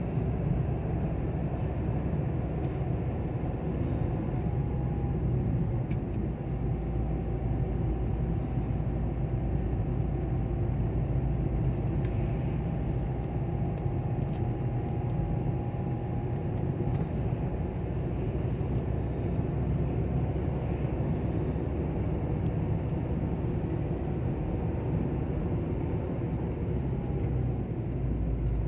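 Car cabin noise while driving: a steady low rumble of engine and tyres on the road, with a faint whine above it.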